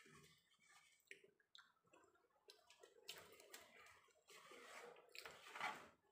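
Faint clicks and soft scraping of fingers picking the last rice grains off the bottom of a stainless steel bowl, the scraping a little louder in the second half.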